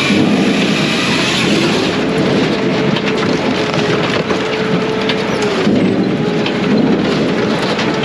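Brute Force USA 18-24HD diesel firewood processor running, its steady tone sagging briefly about six seconds in as the machine takes load, over a dense clatter of wood.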